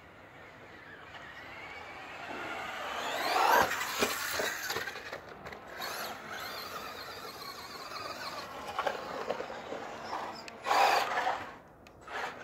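Electric motor of a Traxxas Rustler VXL radio-controlled truck whining as it drives about, the pitch rising and falling with its speed. It is loudest as the truck comes close about three and a half seconds in, with a short louder rush of noise near the end.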